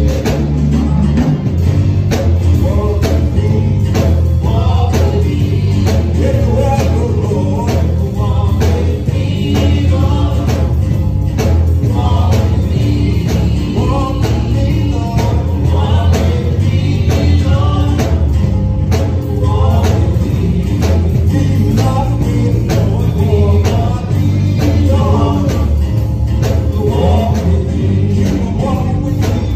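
Gospel praise team of men and women singing together into microphones over an instrumental backing with heavy bass and a steady beat.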